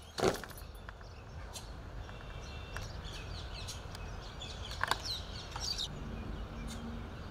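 A sharp stamp-and-slap just after the start as a rifle guard completes a drill movement, then birds chirping over quiet open-air ambience, with a few faint clicks of rifles and boots, the clearest about five seconds in.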